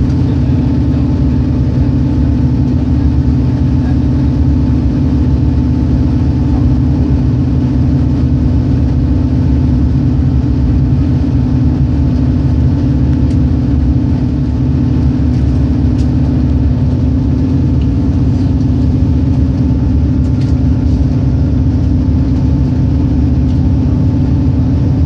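Passenger train running at speed, heard from inside the carriage: a steady low rumble with a constant hum.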